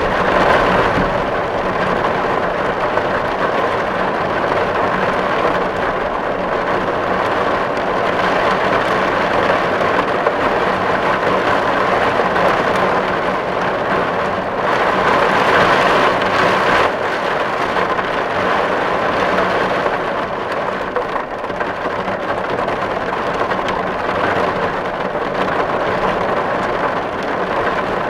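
Steady heavy rain on a tin roof: a dense, even patter of drops on the metal, swelling slightly about halfway through.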